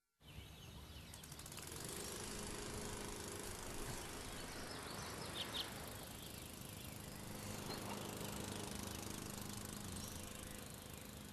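Faint, steady background ambience of a quiet room with a low hum under it, and a brief high chirp about halfway through.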